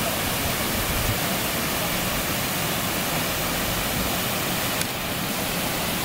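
Waterfall: water cascading over rock slabs into a pool, a steady, even rush.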